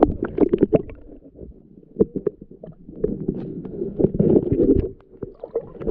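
Muffled underwater sloshing and gurgling, with many quick knocks and clicks, from a camera held under murky creek water with water moving over its microphone.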